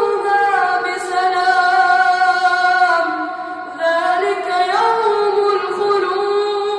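A boy's high voice chanting Quranic recitation in a drawn-out melodic style, holding long notes that step slowly up and down in pitch, with a short lull just before four seconds in.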